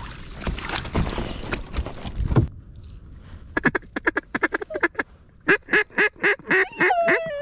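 Splashing and rustling for the first two seconds or so. Then a rapid run of about fifteen loud duck quacks, each note dropping in pitch, ending on a drawn-out note.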